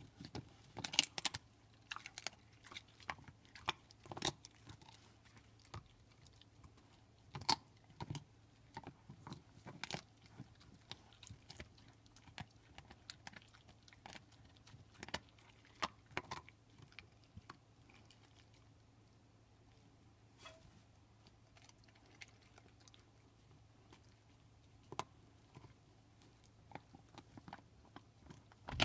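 Pit bull gnawing and crunching on a beef bone: irregular sharp cracks and crunches, thinning out for several seconds in the middle and picking up again near the end.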